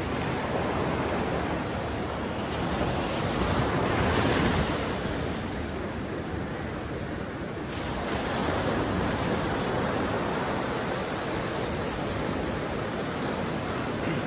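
Sea surf washing onto a sandy beach, a steady noise of breaking waves that swells louder about four seconds in.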